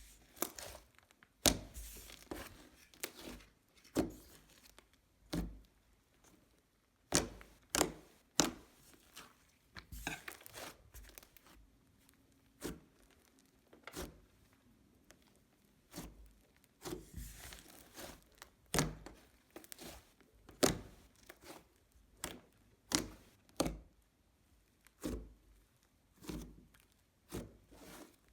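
Creamy cloud-cream slime being squeezed, poked and stretched by hand, giving irregular sticky clicks, pops and crackles, about one or two a second.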